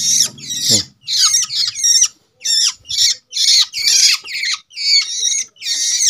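Young long-tailed shrikes giving harsh, raspy calls in quick succession, about two or three a second: the begging calls of fledglings asking to be fed.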